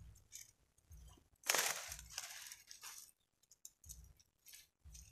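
Rustling and light handling noises as reeds and grass are brushed while a bamboo hook-rod is set in the bank, with a louder brushing rustle about a second and a half in and a few dull low thumps.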